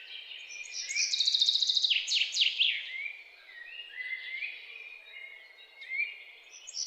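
Birds chirping: rapid high trills and falling whistled notes, loudest from about one to three seconds in.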